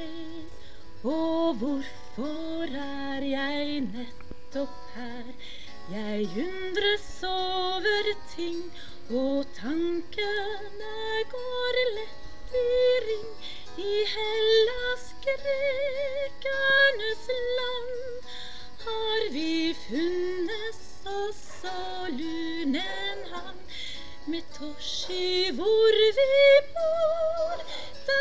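A woman singing a solo song with wavering vibrato on the held notes.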